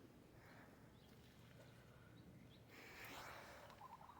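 Near silence, with only faint background sounds.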